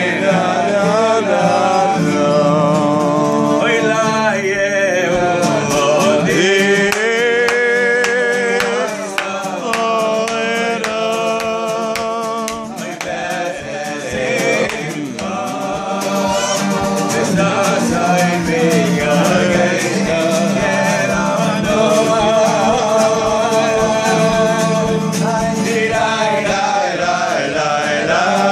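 Male voices singing a slow melody with vibrato, accompanied by two acoustic guitars strumming a steady rhythm.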